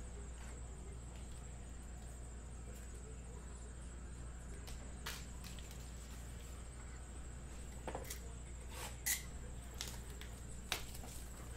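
Hands handling trading cards and plastic card holders and packaging: faint rustles and light clicks, with a few sharper clicks and snaps about 8, 9 and 11 seconds in, over a steady low electrical hum and a faint high whine.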